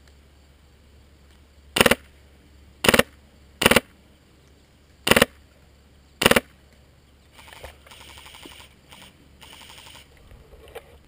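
Airsoft gunfire close by: five short, sharp bursts over the first six seconds or so, each a second or so apart. Then comes a quieter, longer rattle of rapid fire.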